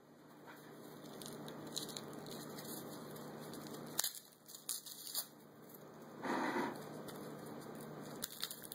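Dry, papery garlic skins crinkling and crackling as a garlic bulb is handled and pulled apart by hand, with a few sharp clicks and a louder rustle about six seconds in.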